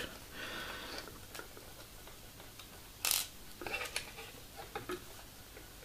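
Small light clicks and ticks as a screwdriver and a small screw are worked against model-kit frame parts: one sharper click about three seconds in, then a quick run of faint ticks.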